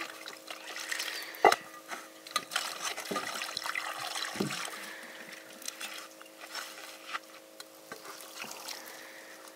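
Water splashing and pouring in a cooking pot, with a few sharp knocks, the loudest about one and a half seconds in.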